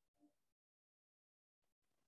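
Near silence: faint room hiss that cuts out completely for about a second.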